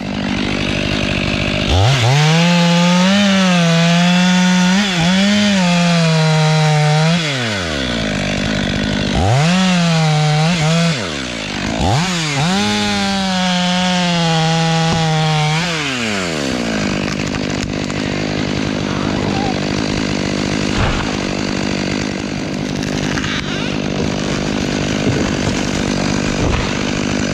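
Stihl MS 500i fuel-injected two-stroke chainsaw revving up and cutting into a beech trunk in three spells of full throttle, the pitch wavering under load, dropping back between them. After about seventeen seconds it settles to a steady idle.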